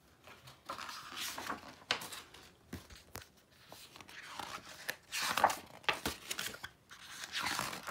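Pages of a hardcover picture book being opened and turned by hand: several dry paper swishes and rustles, with a couple of faint knocks from handling the book.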